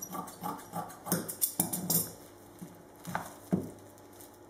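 Large steel scissors cutting thick breather felt on a metal table: irregular crunchy snips, densest in the first two seconds, then two single handling knocks about three seconds in.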